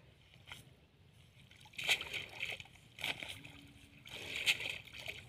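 Water splashing and pouring as a wet mesh fishing net is hauled up out of the water, in irregular splashes that are loudest about two seconds and four and a half seconds in.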